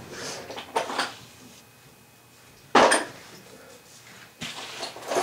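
Metal tools and parts clinking and clattering as they are handled and set down, with one loud, sharp knock near the middle.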